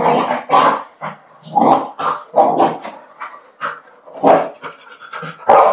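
Dog barking: about a dozen short, loud barks at uneven intervals.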